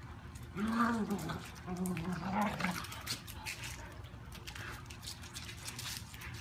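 Small dog whimpering and grunting during rough play: a brief pitched cry about a second in, then a short wavering run of whines around two seconds in.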